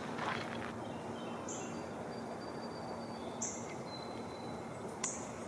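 Wild songbirds calling: a few thin, high whistled notes and short high chirps repeating every second or two over a steady outdoor hiss, with a footstep near the start.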